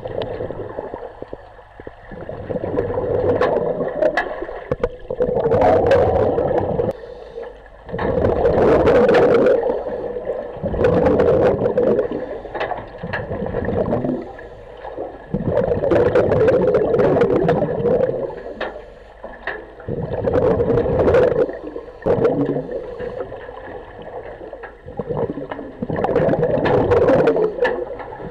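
A diver breathing underwater through a scuba regulator: rumbling, gurgling bursts of exhaled bubbles every four seconds or so, with quieter gaps between them while he breathes in.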